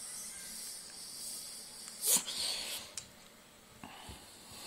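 Domestic cat hissing at a hand: one sharp spitting hiss about two seconds in that trails off over half a second, followed by a click and a few soft knocks.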